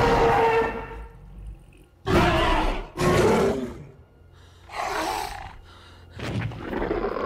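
Film sound effects of a roaring dinosaur: the Indominus rex's long roar dies away in the first second, then come four shorter roaring calls, about a second apart at first, spaced out near the end.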